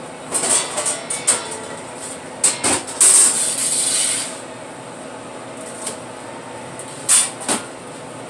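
Long-handled metal pizza peel scraping and knocking against the floor of a wood-fired brick oven, a run of short scrapes and clanks with one longer rasping scrape about three seconds in. A steady hum runs underneath.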